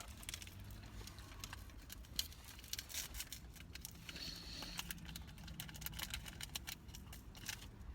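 Quiet handling noise: scattered light clicks and crinkling of small paper packets and wrappers being handled, over a low steady room hum.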